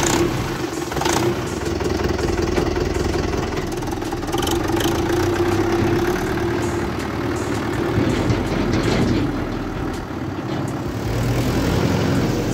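Mahindra Yuvo tractor's diesel engine running steadily at idle, with a constant hum.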